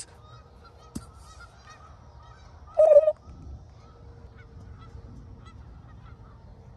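Birds calling: one loud, short, harsh call about three seconds in, over faint repeated high chirping.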